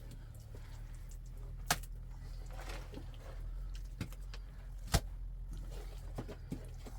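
A handful of sharp knocks at irregular intervals, the loudest about five seconds in, over a steady low rumble.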